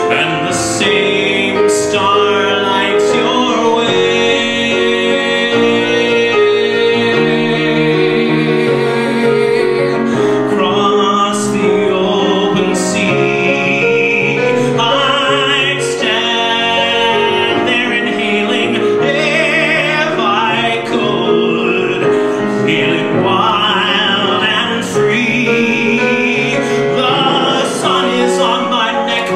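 A man singing with piano accompaniment, holding long notes with a wide vibrato.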